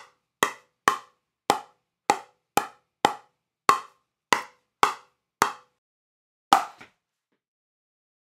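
A plastic pickleball bounced over and over on the face of a ProKennex Black Ace paddle: a sharp pop about twice a second, a dozen or so even strikes. Then it pauses, and one last strike comes about a second later with a small second tap just after it.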